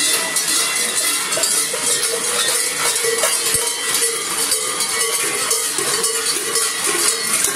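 Large bells worn by fur-costumed Krampus runners clanging and rattling as they run and jump about.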